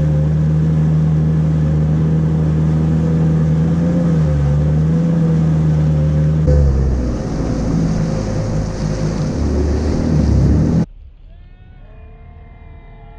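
Jet ski engine running steadily at low speed, its pitch dipping briefly and shifting about two-thirds of the way through. Near the end it cuts abruptly to a much quieter stretch with faint, wavering, falling pitched sounds.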